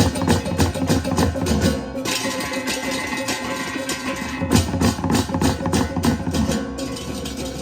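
Balinese baleganjur processional gamelan playing: a fast, dense run of metal percussion strokes over steadily ringing gong tones.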